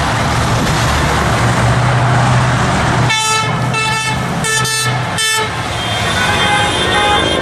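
Heavy road traffic passing, then vehicle horns honking: several short blasts about three seconds in, followed by a longer held honk near the end. The honking is drivers sounding their horns in support.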